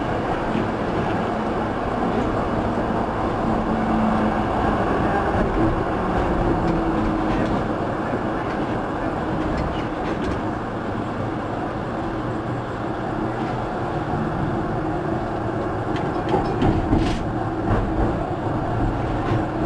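EGT6 "Typ Braunschweig" tram running along the track, heard from inside the driver's cab: a steady rumble of wheels on rails with a hum. A few sharp clicks come near the end.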